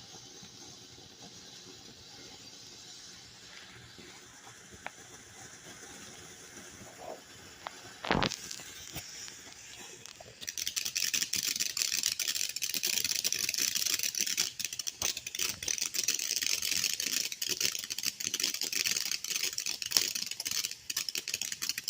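Magic Dragon consumer firework going off: a faint hiss at first, a single sharp pop about eight seconds in, then from about ten seconds a loud steady hiss thick with rapid crackling as it sprays.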